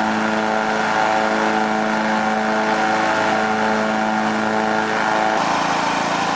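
Riding lawnmower engine running steadily under way, with an even engine note; about five seconds in the note changes abruptly to a different pitch.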